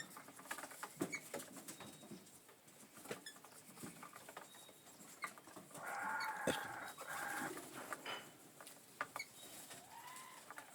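Australian ringneck parrots calling at close range, amid scattered sharp taps and clicks. The loudest call comes about six seconds in and lasts a second and a half with a brief break; a shorter call follows near the end.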